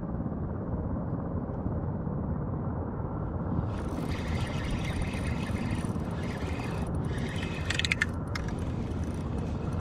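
Steady low wind rumble on the microphone. From about four seconds in, a spinning reel is cranked with a whirring hiss, and a quick cluster of sharp clicks comes near eight seconds as the rod loads up with a hooked fish.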